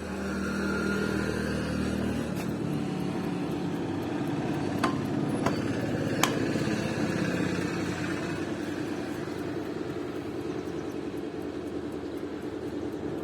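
A steady low motor hum, with three sharp clicks around the middle.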